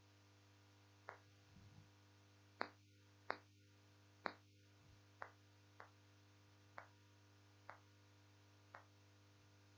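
Whiteboard marker tapping against the board as words are written: short sharp taps at irregular intervals, roughly one a second, over a low steady electrical hum.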